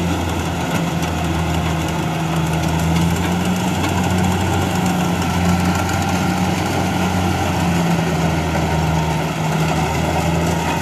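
Kubota combine harvester running steadily while it harvests rice: a constant, even engine drone with a strong low hum, holding one speed.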